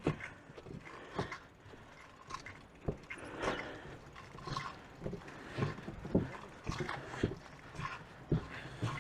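Footsteps on a loose wooden plank bridge: the planks knock and thud underfoot in an irregular run, about one to two a second, as the deck shifts under the walker's weight.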